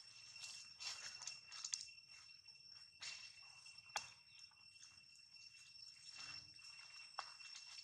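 Faint, steady insect chorus of two unbroken high tones, with soft rustles and sharp clicks in dry leaf litter several times, the clearest about three and four seconds in.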